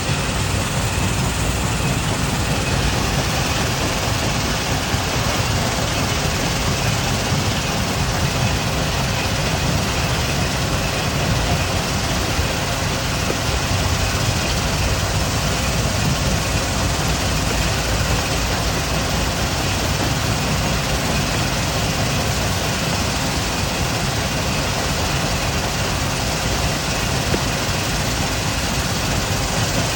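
Stone crushing plant working hard rock: a steady, dense machine noise, heaviest in the low end, with no pauses or single impacts standing out.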